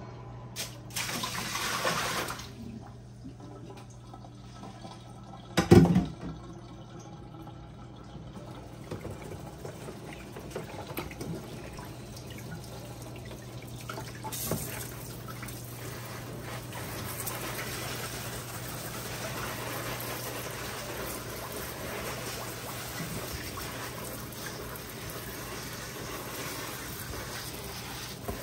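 Water running steadily, with a brief rush of water early on and one loud knock about six seconds in.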